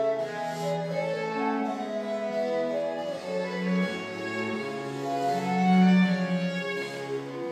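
Baroque chamber music: a violin, cello, recorder and harpsichord playing together, with held notes in the strings and recorder over the harpsichord. A loud low note comes about six seconds in.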